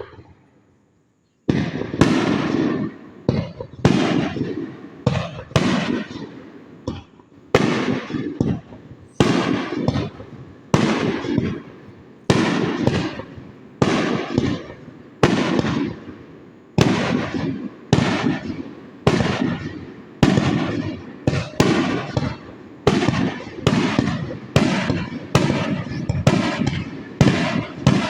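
Aerial firework shells bursting one after another, sharp bangs about one to two a second, each trailing away after the hit. They start about a second and a half in and come closer together near the end.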